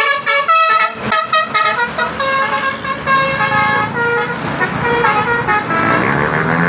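A bus's Basuri telolet horn playing a quick tune of stepped notes. Engine noise rises near the end.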